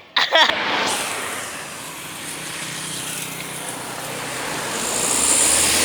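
A road vehicle passing close by, a steady rush of engine and tyre noise that swells again near the end, with no horn sounding.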